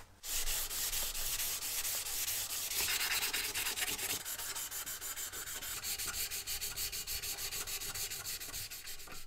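A pad being rubbed briskly back and forth over the green-glazed cast-iron frame of an antique camp stove, a scratchy scrubbing in fast, even strokes several times a second.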